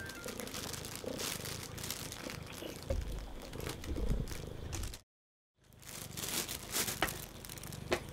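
Close rustling and crinkling of fur and denim as cats move and are stroked on a person's lap, with scattered soft clicks and thumps. The sound cuts out completely for about half a second just after the middle.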